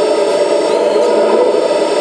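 Kabolite K350-200 1/14-scale RC hydraulic excavator running, a steady whining hum from its hydraulic pump mixed with the engine noise of its sound module.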